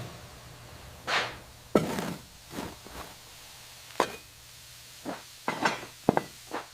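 A series of light, sharp knocks and taps, about ten of them at uneven intervals, coming closer together in the last couple of seconds.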